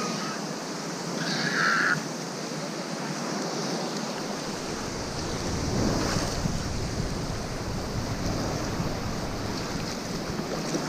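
Small waves washing through shallow surf, a steady hiss, with a short louder burst about one and a half seconds in. From about four seconds in, wind rumbles on the microphone.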